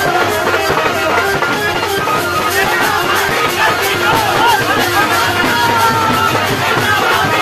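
Loud music with a steady drum beat.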